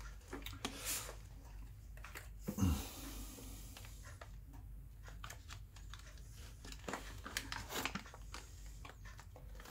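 Faint rustling and light clicks of hands handling the plastic parts of a reverse osmosis filter during a membrane change, with one short low thump about two and a half seconds in.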